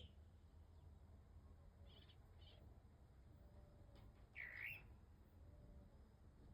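Faint bird calls: two short high chirps about two seconds in, then a louder, longer call a little past four seconds.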